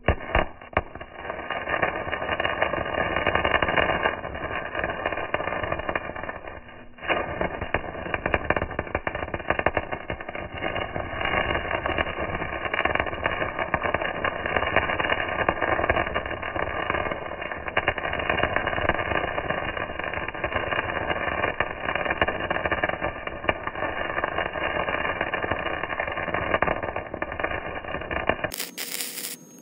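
Electric arc welding on the rusted steel go-kart frame: a steady, dense crackle from the arc as the bead is laid. It pauses briefly about 7 seconds in, then runs again and stops shortly before the end.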